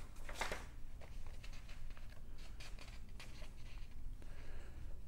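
Paper pages of an instruction booklet being handled and turned, several short rustles with the loudest about half a second in, over a low steady hum.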